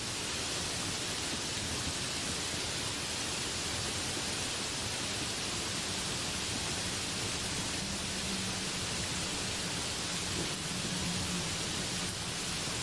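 Heavy rain pouring steadily onto banana leaves and trees, an even, unbroken hiss. A low rumble swells in the second half.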